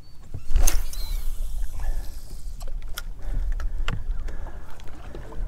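Low wind rumble and water lapping against a small fishing boat, with a few sharp knocks: the loudest comes about a second in and two more follow near the middle.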